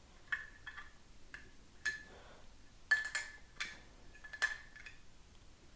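Metal safety valve wrench clinking against the new safety valve and pressure cooker lid as the valve is tightened: about nine light, irregular metallic clinks, each with a brief ring.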